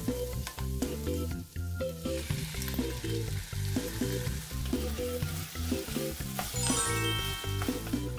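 Sausage and vegetables sizzling in an oiled frying pan as they are stir-fried, with clicks of a wooden spatula tossing them. Upbeat background music with a steady bass line plays throughout, and a bright rising chime rings near the end.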